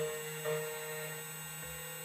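2M2 Tank CNC key cutting machine running while it cuts a key blank: a steady motor whine and hum whose pitch and level shift slightly every second or so as the cutter moves along the key.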